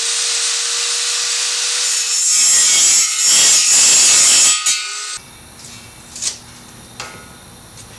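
Angle grinder grinding the edge of thick steel angle iron, its motor holding a steady whine under the grinding. The grinding is heaviest for a couple of seconds in the middle, then the grinder winds down and stops about five seconds in, followed by a couple of light metal knocks.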